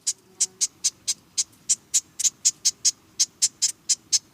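Marsh wren calling: a long, even series of short, dry, high notes, about five a second.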